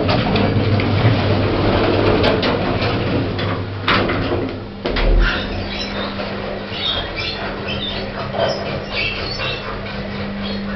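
A lift in operation. For the first few seconds there is door and mechanism noise with a few sharp clicks. After about five seconds the lift runs with a steady low hum, with faint squeaky, chirping noises over it.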